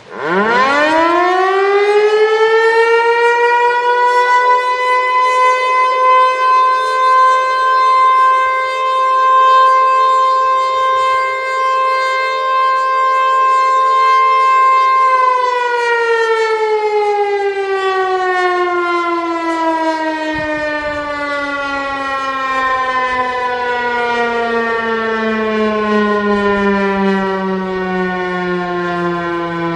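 Federal Signal Eclipse-8 outdoor warning siren sounding its steady alert tone. It winds up quickly to one held pitch, stays there for about fifteen seconds, then winds down in a long, slowly falling glide.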